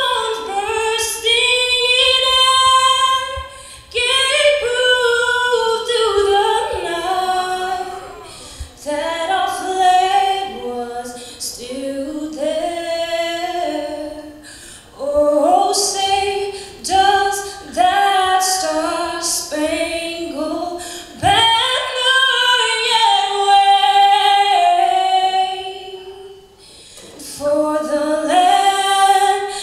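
A woman's voice singing unaccompanied: a melody of held notes that step up and down, with short pauses for breath about halfway through and again near the end.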